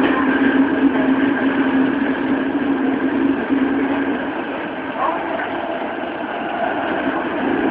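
Tokyo Metro 07 series subway train running through a tunnel, heard from inside the car: a steady loud rumble of the running train with a hum that fades about halfway through.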